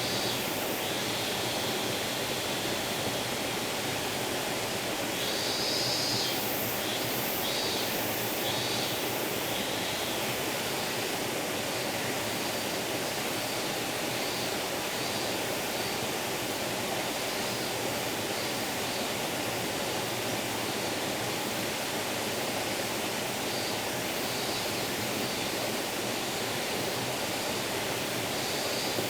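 Small forest stream babbling steadily, with short high chirps or buzzes now and then, thickest around six to nine seconds in.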